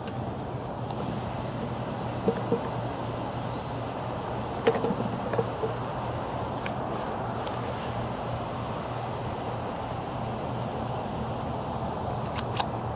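Steady high-pitched insect chorus over a background hiss, with a few faint clicks about two, five and twelve and a half seconds in.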